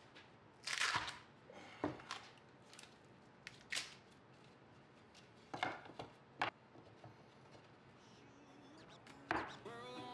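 Scattered sharp knocks and clicks of wooden parts being handled and set down on a wooden workbench, with one longer scraping rustle about a second in. Background music starts near the end.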